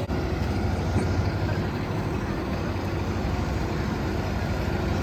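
A large engine running steadily, a low, even hum with a few constant tones and no change in pitch.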